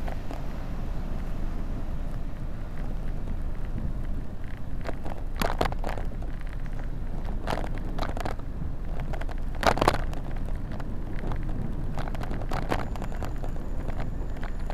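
Steady rumble of wind and road noise on the microphone of a camera riding on a moving bike. Several sharp clicks and rattles come through, the loudest about ten seconds in.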